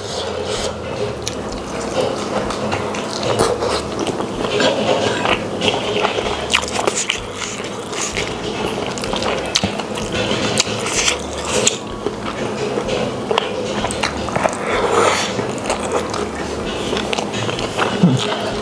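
Close-miked eating: wet chewing and lip-smacking clicks through mouthfuls of spicy rice and meatballs eaten by hand, going on steadily with many short crackles.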